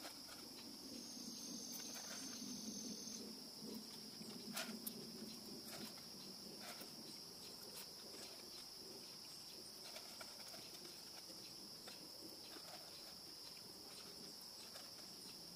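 Crickets trilling in a steady high-pitched chorus, with a few faint clicks as popcorn is picked out of a metal popper basket.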